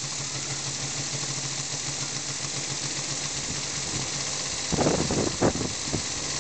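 Model elbow engine running fast on about 40 psi: a steady hum over an even hiss, with a thumping from its cover vibrating. A short louder burst comes about five seconds in.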